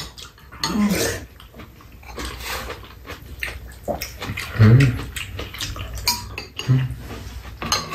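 Metal spoons and chopsticks clicking against ceramic bowls, with slurping and chewing as two people eat tteokguk (rice cake soup) and kimchi. Three brief vocal sounds come through, about a second in, near the middle and toward the end.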